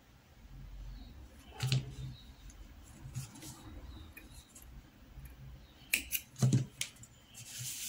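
Small metal thread snips clicking several times as they trim the end of a cotton crochet thread, a quick cluster of snips about six seconds in, after a few lighter clicks of the tools being handled. A soft rustle follows near the end.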